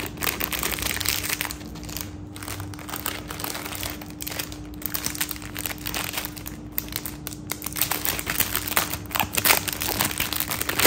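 Clear plastic jewellery pouches crinkling and rustling as hands pick up and handle them, with irregular crackle throughout.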